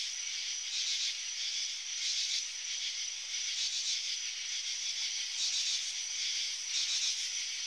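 Steady high-pitched hiss of an evening insect chorus, swelling and fading irregularly about once a second.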